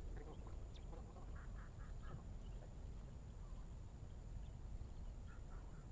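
Duck-like bird calls: short quacking notes in quick runs of three or four, about a second and a half in and again near the end, over a steady low rumble.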